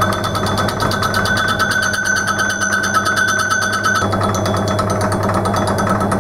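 Small metal lathe running, a hand-ground cutter taking a cut across a spinning cast-aluminium faceplate: a steady motor hum under a higher cutting whine with a fast, even ticking. The whine drops and the tone shifts about four seconds in.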